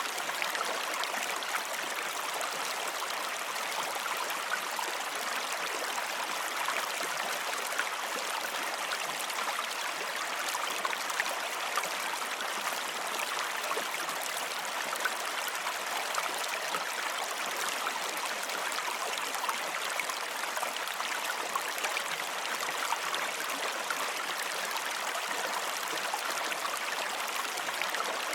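Running water, a steady unbroken flow with a fine babble of small splashes throughout, like a stream.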